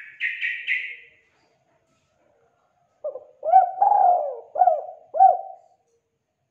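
Spotted dove cooing: a phrase of about five low coos, each bending up and back down, the third drawn out longest, starting about three seconds in. Before it, at the very start, comes a short higher-pitched sound of three quick pulses.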